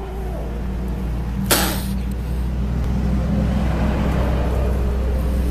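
Small kitten hissing: one sharp spit about a second and a half in, followed by a softer hiss, over a steady low rumble.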